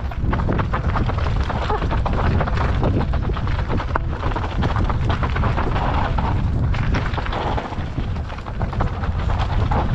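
A mountain bike descending a rough trail: a heavy, steady low rumble of wind and tyre noise, with many small knocks and rattles from the bike over uneven ground.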